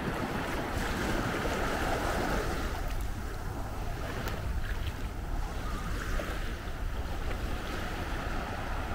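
Small sea waves washing onto the beach, the surf swelling twice, with wind rumbling on the microphone.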